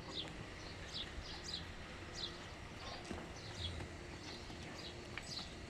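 Small birds chirping faintly: a continuous run of short, high, falling chirps, a few every second.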